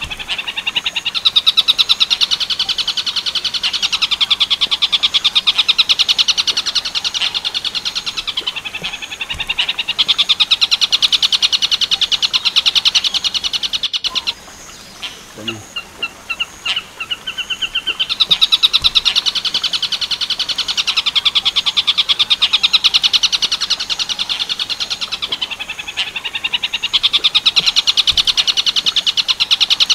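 Recorded 'tengkek buto' birdsong played as a master song for training long-tailed shrikes (cendet): a long, high, very rapid trill, broken about halfway through by a short pause with a few separate notes, then another long trill.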